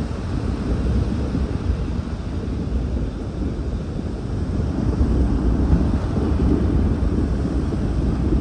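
Wind buffeting the microphone: a steady, gusting low rumble that swells slightly a few seconds in.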